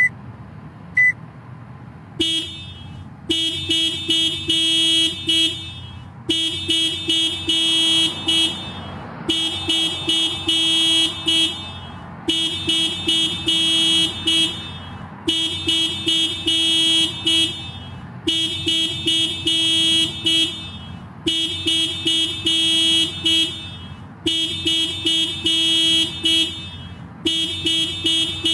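Toyota car alarm going off: after a short high beep about a second in, rapid pulsed honking sounds in bursts about two seconds long, repeating about every three seconds.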